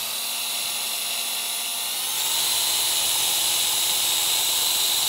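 Cordless drill running steadily with a high whine as a sharp-tipped wood bit bores through a plastic golf cart fender. About two seconds in, the motor picks up speed and gets louder.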